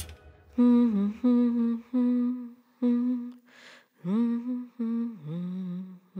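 A lone voice humming a slow tune of about eight short notes, each sliding up into its pitch, with a breath taken about halfway through.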